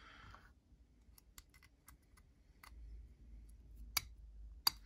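Small metal parts of a folding knife clicking as they are handled and fitted together: a few faint ticks, then two sharper clicks near the end.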